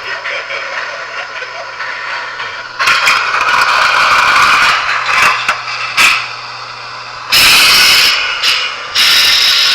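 Lionel O-gauge model subway train running on three-rail track: a rattling running noise over a low steady hum, broken by three loud bursts of hiss.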